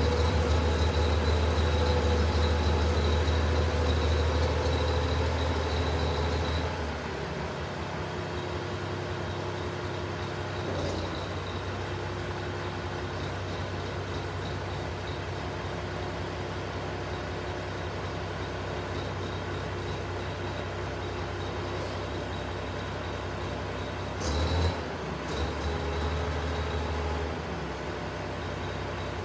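International 956 XL tractor's six-cylinder diesel engine running. It is loud and close at first, then about seven seconds in it drops suddenly to a quieter, steady sound as the tractor moves away. There is a brief louder burst about 24 seconds in, and the engine is stronger again for a couple of seconds before falling back.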